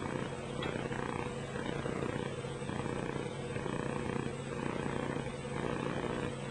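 A steady low hum with a rumble underneath.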